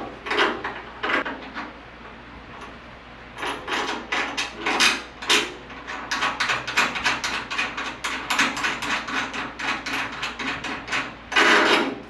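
Hand-tool work on hood pin latch hardware: a quick run of short, rasping strokes, about three a second, with a longer, louder stroke near the end.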